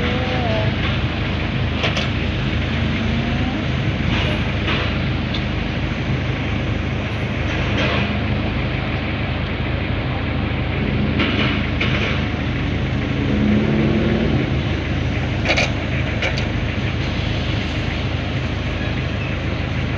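Steady engine and road noise of a moving vehicle, with a few scattered clicks and knocks.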